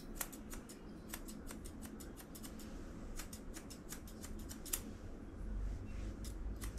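Grooming scissors snipping through a dog's facial fur in rapid, irregular snips while the fringe over its eyes is trimmed.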